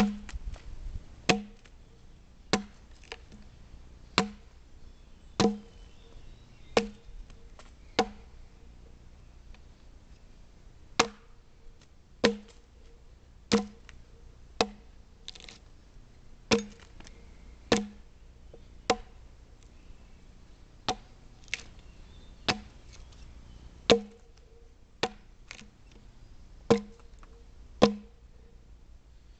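Axe chopping into a soft white poplar log, hewing it square by hand: a steady run of sharp knocks, about one every second and a quarter, with a pause of a few seconds about a third of the way in.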